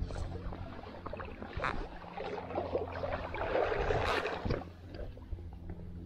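Stream water splashing and sloshing close by, irregular, with small knocks and busiest in the middle few seconds.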